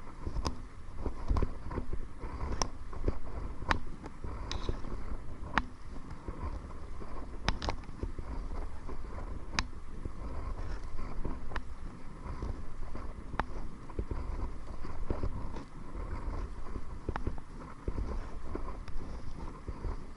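Kayak paddling into the wind: wind rumbling on the microphone, with sharp clicks and splashes from the paddle strokes about every one to two seconds.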